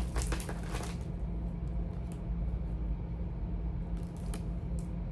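Charging cords and their plastic plugs being handled: a quick run of rustles and clicks in the first second, then a few single clicks, over a steady low hum.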